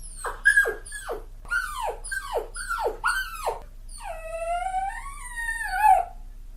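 Dog giving a quick run of short yelps, each falling in pitch, then from about four seconds in one long howl that rises and wavers before it trails off.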